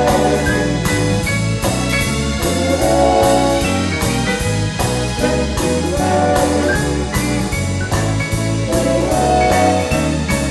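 Background music with a steady drum beat and a bass line stepping from note to note.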